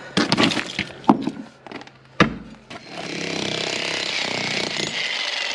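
A few sharp knocks of steel on concrete, then about three seconds in an electric breaker (jackhammer) starts hammering steadily, chiselling out thick concrete slab.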